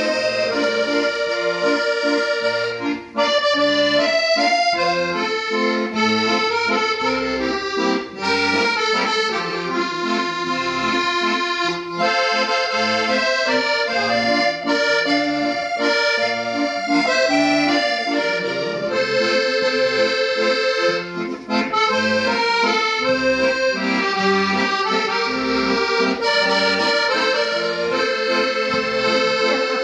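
Cavagnoli piano accordion played solo: a melody on the treble keys over sustained chords and bass, broken by a few brief pauses.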